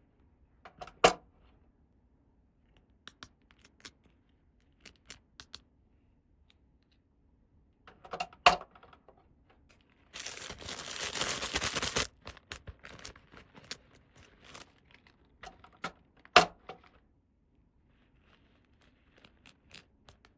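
Toy playset packaging and small plastic pieces being handled: scattered light clicks, three sharp taps, and about two seconds of tearing near the middle.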